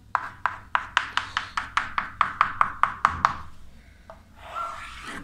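Chalk tapping on a blackboard: about fifteen quick, sharp strokes at roughly five a second as short hatch marks are drawn along the back of a mirror arc, then a softer, longer chalk stroke near the end.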